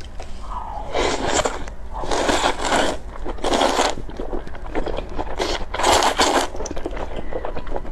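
Loud slurping of wide, flat hot-pot noodles, a run of separate slurps about a second apart.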